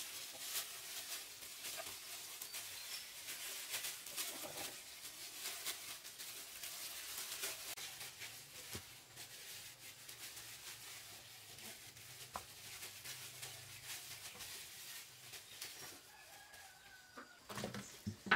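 Farm birds calling faintly among many small clicks and rustles, with a few louder knocks near the end.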